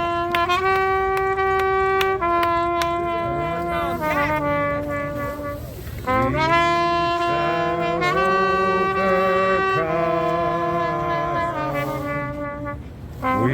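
Trumpet playing a slow melody of long held notes, with a lower accompanying line joining a few seconds in; the phrases pause briefly about six seconds in and again near the end.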